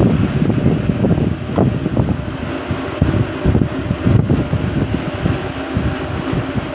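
Steady rushing, fluttering airflow noise from a fan blowing near the microphone, mostly low-pitched and buffeting.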